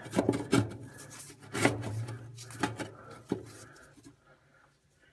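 Firebricks being set in place in a wood stove's firebox: a few sharp knocks and scrapes of brick against brick, over a low hum, all dying away after about three and a half seconds.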